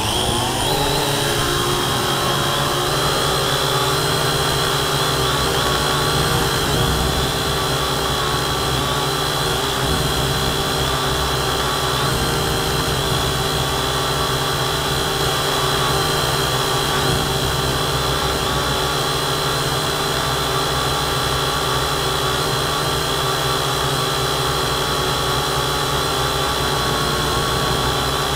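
Syma X8C quadcopter's four brushed motors and propellers spinning up sharply, then running at a steady whine as it lifts off and climbs, heard through the camera mounted on the quad itself.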